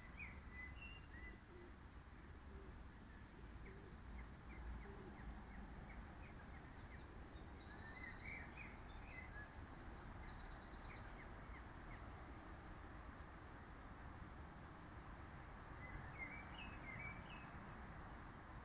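Faint outdoor ambience: a steady low hiss and rumble, with small birds chirping in short clusters near the start, about halfway through and near the end.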